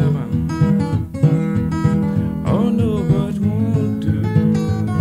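Acoustic guitar playing Piedmont-style blues, with plucked notes over a steady bass.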